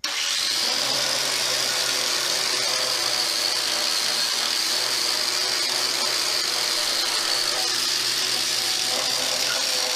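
A handheld electric power tool running steadily at one speed, its motor whining evenly with a hiss over the top.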